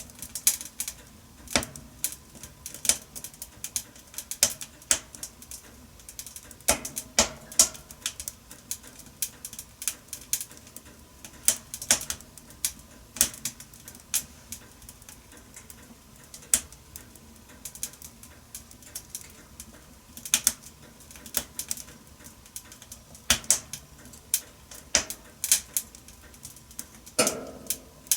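Wood fire crackling in a wood-burning stove: irregular sharp snaps and pops over a low hiss, with a few louder pops, one near the end.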